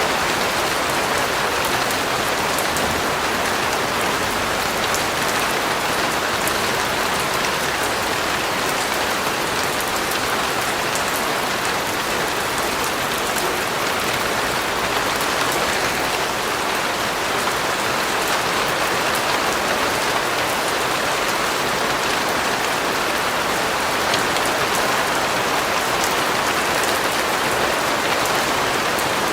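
Steady rain falling on a surface, an even hiss with many fine drop patters.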